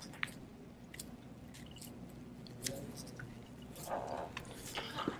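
Small plastic clicks and handling noise from a smartphone being reassembled in gloved hands: a sharp click just after the start as the battery connector is pressed onto the board, another near the middle, then a rustle of nitrile gloves and plastic as the phone is picked up and turned over.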